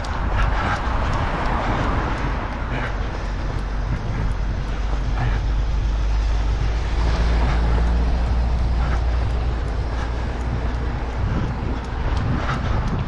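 Wind rumbling on the microphone of a camera carried by a runner, with faint regular footfalls underneath.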